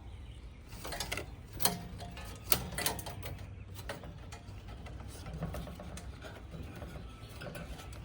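Scattered sharp clicks and light clatter of hand work on the unit's parts and wiring, loudest about a second and a half and two and a half seconds in, over a low steady hum.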